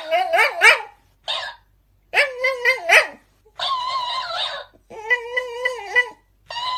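A Shiba Inu dog vocalizing in a run of about six short bursts of wavering, whiny calls, traded back and forth with a talking plush toy that repeats the sounds back.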